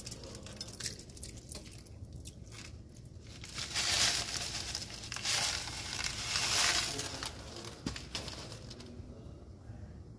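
Dry vermicelli pasta crackling as it is crushed and crumbled by hand, loudest about four seconds in and again around six seconds in.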